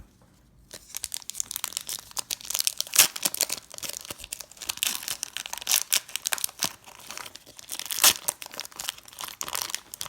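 A Pokémon booster pack wrapper being torn open and crinkled by hand: a dense, irregular crackle of tearing and rustling that starts about a second in and keeps going.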